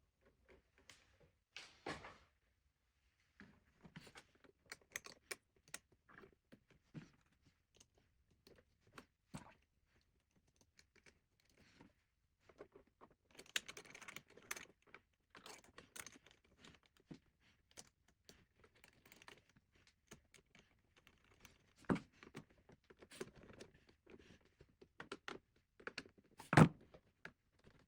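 Small parts and tools handled on a workbench: scattered light clicks, taps and rustles, with one sharper knock near the end.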